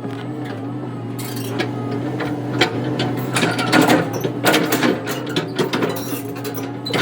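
Machinery engine running steadily with repeated metallic clanks and rattles, typical of heavy equipment at work clearing ground.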